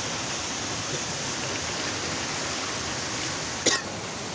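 Steady rush of a flowing river, with one short sharp sound, louder than the water, near the end.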